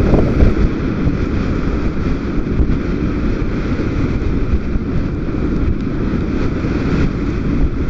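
Small fishing boat running through choppy, wind-driven water in gale-force wind: a loud, dense rumble of wind buffeting the microphone, with the boat's motor droning steadily underneath.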